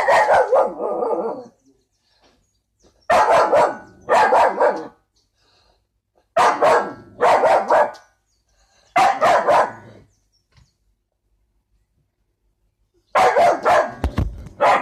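A dog barking at its own reflection in a mirror, which frightens it: loud barks, mostly in pairs, with pauses of a second or two between them and a quicker run of barks near the end.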